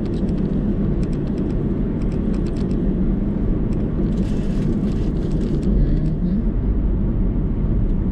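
Steady low road and engine rumble inside a moving car's cabin, with a few light clicks in the first few seconds and a brief hiss about four seconds in.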